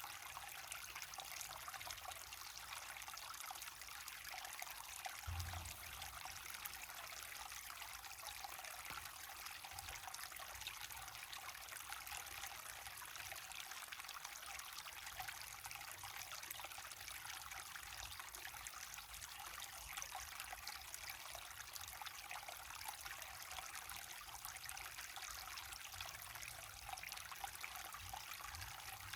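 Water of a small waterfall rushing and splashing steadily, an even hiss with no change in strength, with one brief low bump about five seconds in.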